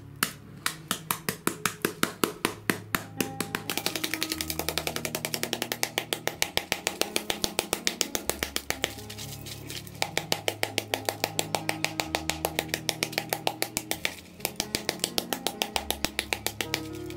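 A metal spoon tapping rapidly on a ball of crumpled aluminium foil, several quick taps a second, packing the foil tight; the tapping pauses briefly twice. Background music with held low notes plays underneath.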